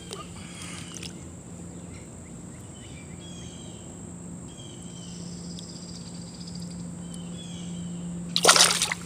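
Creek water trickling steadily, with faint short bird chirps over it. Near the end there is a brief, loud rush of noise.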